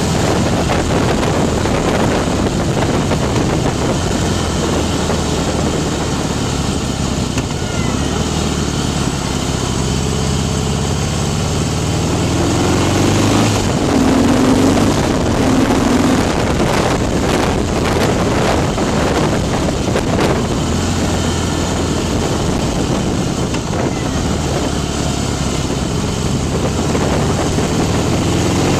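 Harley-Davidson Night Train's Twin Cam V-twin, bored out to 103 cubic inches with a Screaming Eagle Stage II big bore kit, running as the bike is ridden. Its note rises about halfway through and drops again later, with wind rushing over the microphone.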